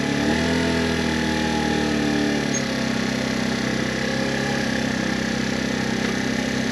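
Small 49cc four-stroke engine of a 2023 Wolf Islander scooter idling just after being started, its pitch shifting a little in the first few seconds before settling to a steady idle.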